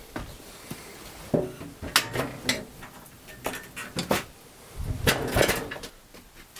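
Irregular knocks, clunks and rattles of workshop equipment being handled and set up, as the bandsaw is readied for cutting.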